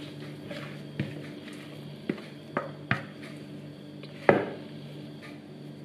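A metal spoon knocking and scraping against a plastic bowl as soft yeast dough is scraped out onto a floured countertop: about five sharp clicks and knocks, the loudest about four seconds in.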